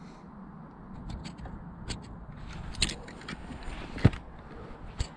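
Dry twigs and brush crackling and snapping with scattered sharp clicks and short scrapes as someone moves through them. The loudest is a knock about four seconds in.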